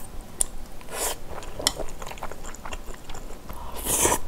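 Close-miked eating sounds of glass noodles in spicy braised kimchi: wet chewing and mouth clicks, with a slurp about a second in and a longer, louder slurp near the end.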